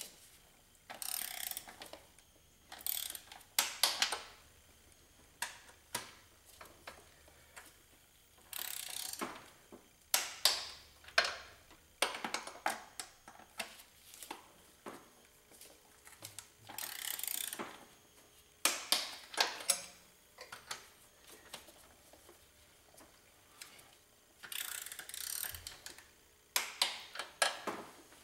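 Hand ratchet clicking in short repeated bursts with pauses between them, as the intake manifold nuts are run down over their studs.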